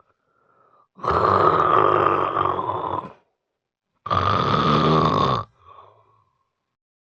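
A person snoring heavily: two long, loud snores, about two seconds and a second and a half long, with a faint breath just before and after. The video presents it as the loud snoring of severe obstructive sleep apnea.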